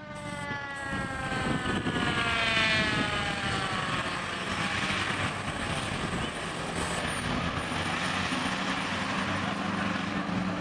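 Fire engine's mechanical siren winding down, its pitch falling slowly over the first five seconds, followed by the passing truck's engine and road noise.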